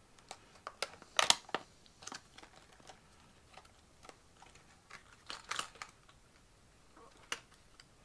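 Hard plastic fishing-lure box being opened and handled: scattered plastic clicks and crackles. The loudest rustling bursts come about a second in and again around five seconds in, with a single sharp click near the end.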